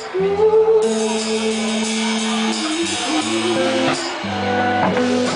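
Live rock band playing loud through amplifiers: electric guitar over sustained bass notes and drums with cymbals washing steadily.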